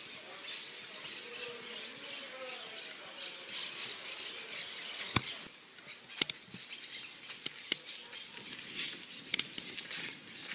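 Many small birds chirping together in a high, continuous chatter, with a few sharp clicks in the second half.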